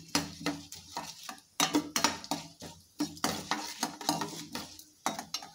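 Steel spoon stirring and scraping a tempering of mustard seeds and chana, urad and moong dal in a stainless steel pan, a string of irregular metallic scrapes and clinks, a few a second. The dals are being roasted in a little oil until they turn reddish-brown.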